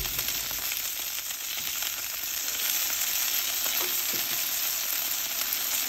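Bacon-wrapped jalapeño poppers sizzling steadily on a Blackstone flat-top griddle, with a couple of faint clicks.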